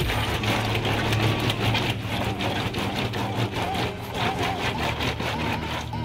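Wet, soapy clothes being scrubbed and rubbed together by hand in a laundry sink: a continuous rough swishing made of quick repeated strokes, over a steady low hum.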